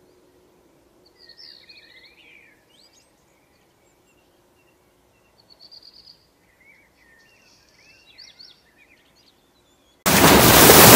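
Faint bird chirps and quick trills in a few short bouts. About ten seconds in, loud surf and wind noise cuts in suddenly.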